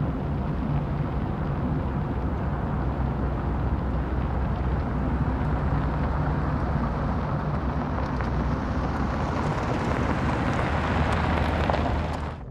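A deep, steady rumble from the soundtrack, swelling and growing brighter over the last few seconds before cutting off abruptly.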